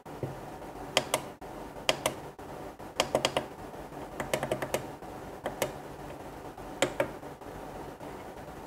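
Small tactile push-buttons on an addressable-LED pixel controller being pressed, clicking singly and in quick bursts of two to four, while its test-mode effects are stepped through.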